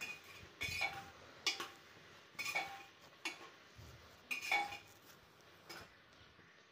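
A metal spoon scraping and clinking against the inside of an aluminium pressure cooker as diced vegetables are stirred, a sharp clink with a short ring roughly once a second.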